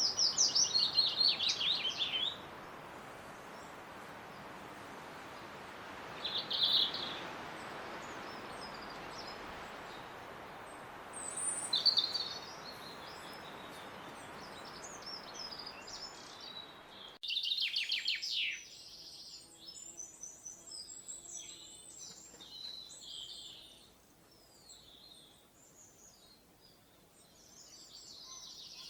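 Songbirds singing and calling: a rapid series of high chirps at the start, single calls about 6 and 12 seconds in, over a steady background hiss. About 17 seconds in the hiss stops abruptly and another burst of rapid chirps gives way to many scattered high twitters.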